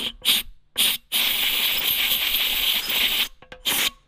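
Compressed-air blow gun hissing as it blasts carb cleaner and dirt out of a Briggs & Stratton lawnmower carburettor: three short bursts, one long blast of about two seconds, then two more short bursts near the end.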